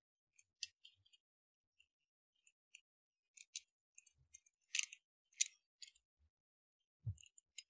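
Faint, scattered metallic clicks and clinks of brake caliper parts being handled, the sharpest ones a little past the middle, then a single dull knock near the end.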